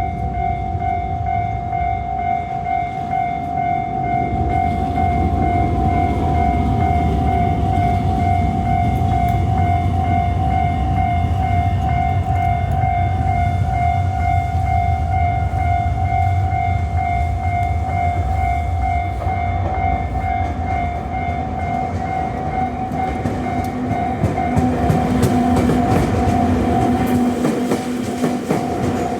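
Level-crossing warning bell ringing steadily in a fast repeating electronic ding, over the low rumble and wheel clatter of a JR 221 series electric train passing over the crossing. The rumble is loudest through the middle of the stretch; near the end a lower tone joins the bell.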